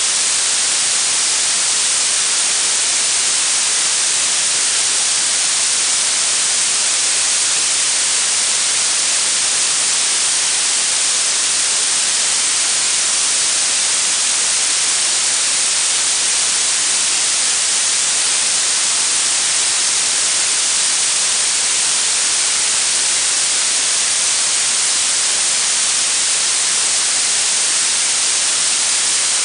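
Blue noise: a steady, unchanging synthetic hiss weighted toward the high frequencies, with little low end.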